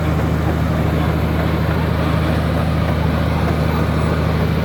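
Komatsu D83E bulldozer's six-cylinder turbo diesel engine running at a steady pitch.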